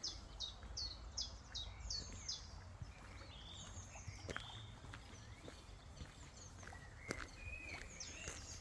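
Wild birds calling: a quick series of about seven high, falling notes in the first couple of seconds, then scattered chirps and whistles from several birds, over a steady low rumble.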